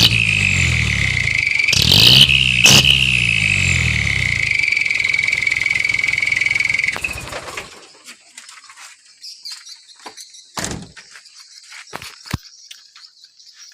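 Truck engine running through a Sulawesi-style 'cung' exhaust, a low engine note topped by a loud, high whistling tone that slowly sinks in pitch. There are two sharp blips of the throttle about 2 seconds in. The sound stops about 7 seconds in, leaving faint clicks and crickets.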